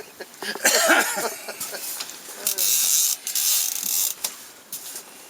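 Fishing reel's drag buzzing in several bursts as a big sturgeon pulls line off against it, with a few short voice sounds in between.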